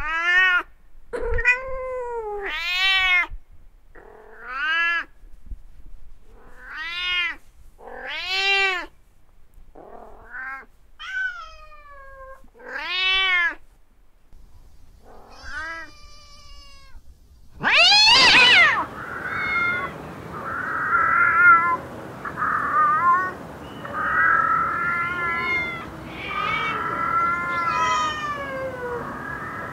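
Domestic cats meowing: about ten separate meows one to two seconds apart, each rising and then falling in pitch. About eighteen seconds in, a loud, long yowl cuts in, followed by several cats meowing over one another against a background hiss.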